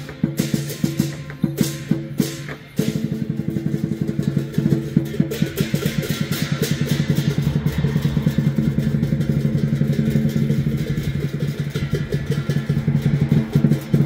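Lion dance percussion: a drum beaten with cymbals and a ringing gong. For about the first three seconds the strikes are separate and uneven. Then it breaks into a fast, steady roll.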